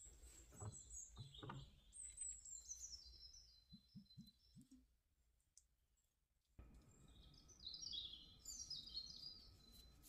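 Faint small-bird chirps and twittering in quick falling runs, with a few soft low knocks in the first half.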